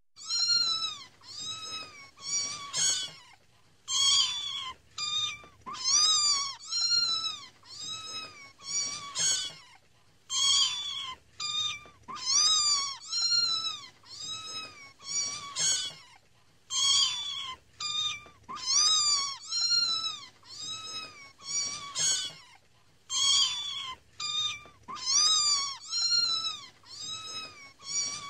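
Young kittens mewing: short, high-pitched calls that rise and fall, several a second in quick runs, broken by brief pauses every few seconds.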